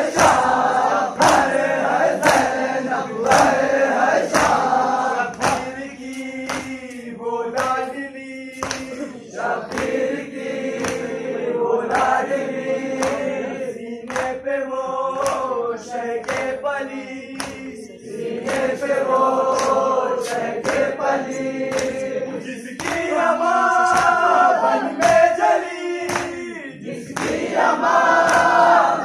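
A group of men chanting a noha (Shia lament) in unison, with sharp, steady hand slaps on their chests (matam) about one and a half times a second, in time with the chant.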